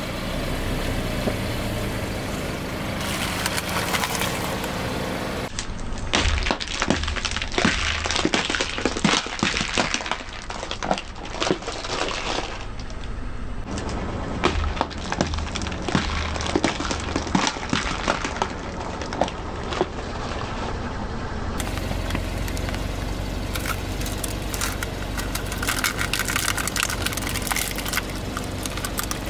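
Hollow plastic capsule toys cracking and crunching under a car tyre, with many quick sharp cracks in a dense run through the middle. A car engine runs low and steady underneath.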